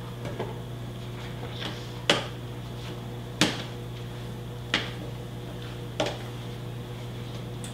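A kitchen utensil knocking sharply against a cooking pot four times, about a second and a half apart, as shredded chicken is added to the sauce, with a few lighter clicks before. A steady low hum runs underneath.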